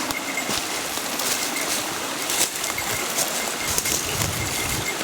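Waterfall water falling and rushing steadily, with a few soft clicks or knocks scattered through it.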